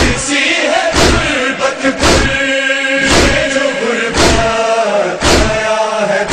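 A group of men chanting a Shia noha (lament) together in unison. A chest-beat (matam) strikes about once a second, keeping the rhythm.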